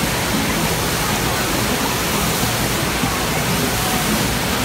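Steady rush of water from a FlowRider surf simulator, its pumped sheet of water streaming and spraying over the wave surface.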